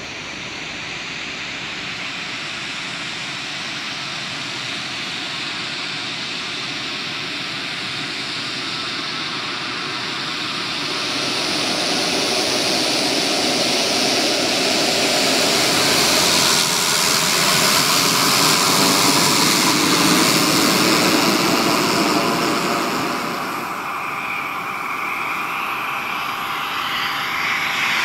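Single-engine Socata TBM-850 turboprop running, its propeller and turbine sound swelling louder over the first twenty-odd seconds as it comes close. After a sudden change near the end, a small business jet, the Cessna Citation Bravo, is heard with a rising turbine whine.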